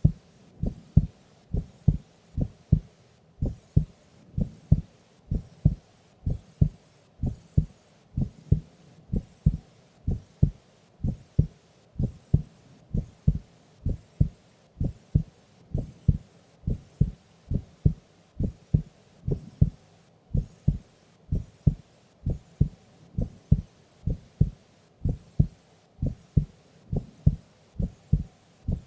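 Heartbeat of a sleeping woman: steady, even paired lub-dub thuds at about one beat a second, a slow resting pace.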